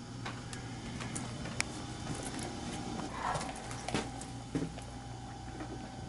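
A few scattered footsteps and handling knocks on a concrete floor over a steady low electrical hum.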